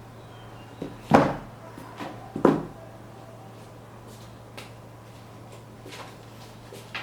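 Two knocks about a second and a half apart, with a few faint clicks, from handling a sneaker and its box, over a faint steady low hum.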